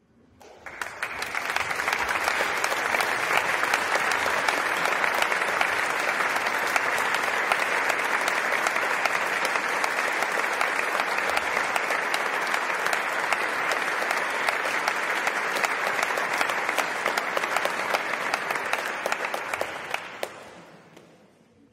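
Audience applauding: the clapping builds up over the first couple of seconds, holds steady, then dies away over the last two seconds.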